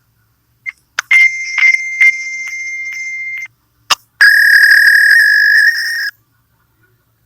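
Fax machine handshake tones: a short beep, then a steady high tone with several clicks over it for about two and a half seconds, a click, then a louder, slightly lower, wavering tone for about two seconds. These are the signals a fax machine exchanges when connecting.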